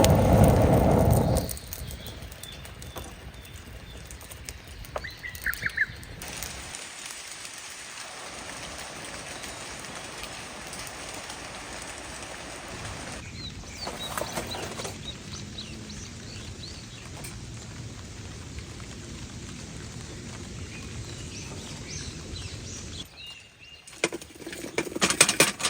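Steady rain hiss with a few short bird chirps. A louder low rumbling noise comes in the first second and a half, and a quick run of sharp clicks comes near the end.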